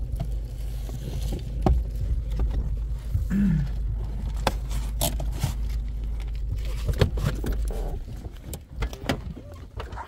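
Car engine running, heard inside the cabin as a steady low rumble, with scattered clicks and knocks. The rumble dies away about eight seconds in.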